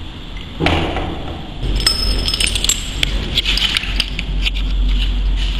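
Metal chains rattling and clinking: a quick run of sharp, ringing metallic clinks over a low rumble.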